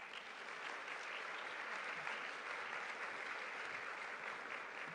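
Large seated audience applauding, many hands clapping in a dense, even patter.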